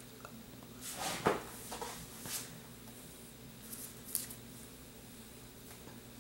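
A few soft rustles and light taps from a person handling her hair and shifting in her seat, about one, two and four seconds in, over a faint steady low room hum.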